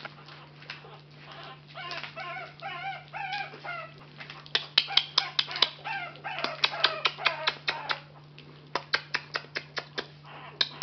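Boston Terrier puppies eating raw ground beef: short high squeaks and grunts, then quick wet smacking and lapping clicks, several a second, loudest from about halfway through.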